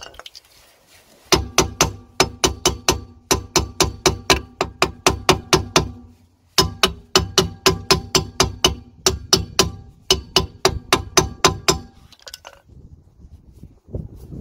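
A mallet tapping a Peugeot 206's rear brake drum onto its hub: quick, even blows at about four a second in two runs with a short break about six seconds in, each blow with a brief metallic ring from the drum.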